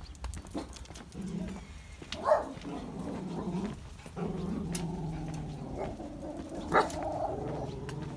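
Footsteps on a brick footpath at a walking pace. Over most of it runs a drawn-out, pitched growling and whining sound, with two sharper, louder cries.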